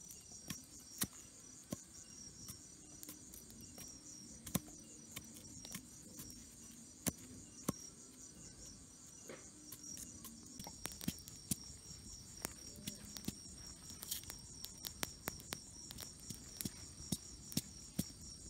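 Steady high, pulsing chorus of crickets, with sharp knocks and cracks scattered through it, more frequent in the second half, as a cleaver chops and splits grilled sugarcane.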